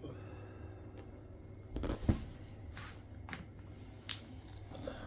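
A shrink-wrapped cardboard box being handled on a table: a thump about two seconds in as it is set down or knocked, then a few short crackles and taps from the plastic wrap and cardboard under the hands, over a steady low hum.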